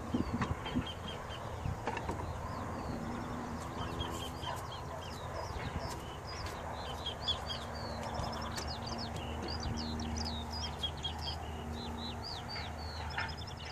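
Outdoor birdsong: many small birds chirping and twittering continuously, with a single sharp knock right at the start.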